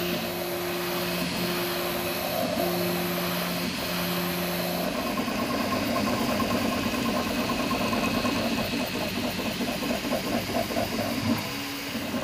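Prusa 3D printer at work: stepper motors whining in steady tones that shift pitch with each long move, over a constant hiss. About five seconds in, the sound turns busier and choppier with rapid short moves as the roof infill prints.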